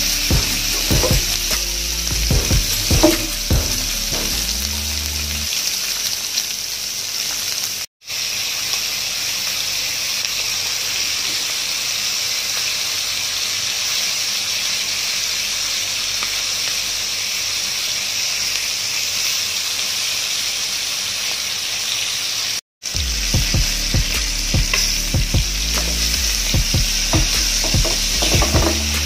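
Chicken leg quarters frying in hot oil in a pan, a steady sizzle that drops out for an instant twice. A low, regular beat sits under it in the first few seconds and again from about 23 seconds in.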